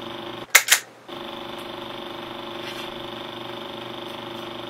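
A camera shutter clicks twice in quick succession about half a second in, the loudest sounds here. Around them runs a steady mechanical whir with a low hum, which drops out briefly at the clicks and then resumes.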